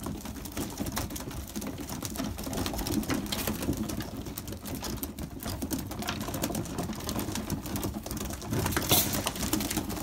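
Young racing pigeons pecking mixed grain from an open hand: a rapid, uneven run of small beak clicks and seed rattles.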